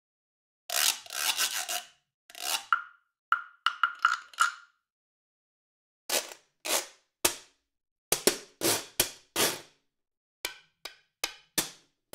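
Sampled scraper percussion from Orchestral Tools' Abacus library, played as single hits: a series of short scrapes in uneven groups with pauses between, starting about a second in. A few strokes carry a brief ringing tone.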